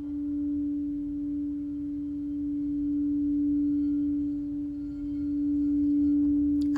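Crystal singing bowl for the sacral chakra, ringing one steady, pure tone with a faint higher overtone, its loudness gently swelling and ebbing.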